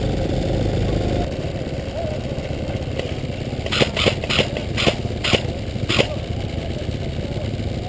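Off-road buggy's engine running as it drives. About halfway through, six sharp cracks follow in quick succession over about two seconds.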